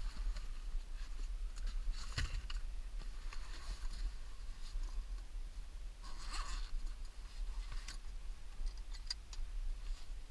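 Low, steady rumble inside a moving car's cabin, with two brief rustles about two seconds in and again about six seconds in, and a few light ticks near the end.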